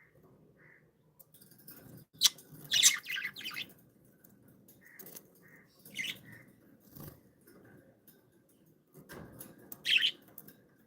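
Pet budgerigars chirping: soft short chirps, with loud, sharp bursts of chirping about two seconds in, around six seconds and near the end.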